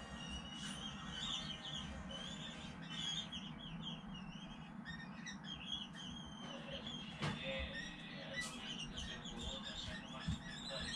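Common kestrel nestlings giving many short, high squeaky begging calls as an adult feeds them meat.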